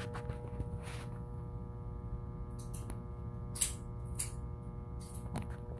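Steady droning hum with a low rumble underneath, and two short clicks about three and a half and four seconds in.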